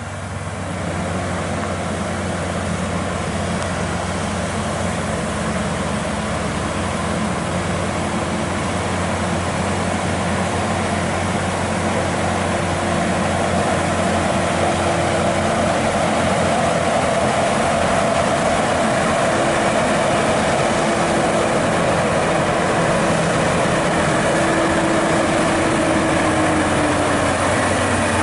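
Volvo FM truck's diesel engine labouring under a heavy lowboy load of about 34 tonnes, growing louder as it approaches and passes. A steady whine sits over the engine and drops in pitch near the end.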